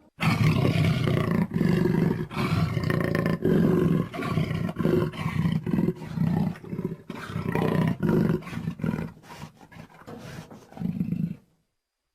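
Velociraptor roar sound effect: a long run of loud roaring calls broken by short gaps, cutting off abruptly near the end.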